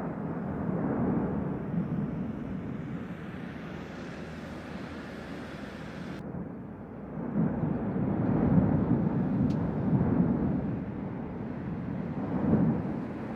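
Cumbre Vieja volcano erupting: a low, rough roar that swells and fades in surges, loudest in the second half.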